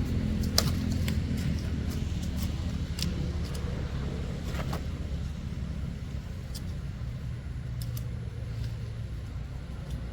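A steady low motor rumble, with a few faint scattered clicks.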